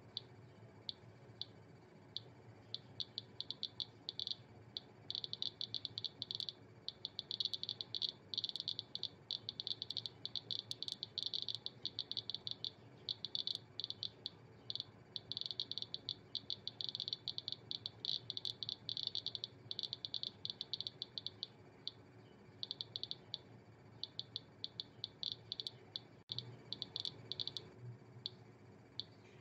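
Geiger counter clicking through its on-board buzzer, each click a detected particle in the Geiger–Müller tube. The clicks come sparse at first, then pack into fast dense runs as the tube is put under a strong radiation source, and thin out again near the end as the count drops back toward background.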